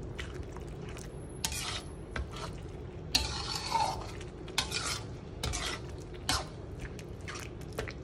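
A slotted spatula stirring a thick chilli sambal with pieces of fried lung in a pan: irregular wet scrapes and knocks against the pan, the longest a little after three seconds in, over a steady low hum.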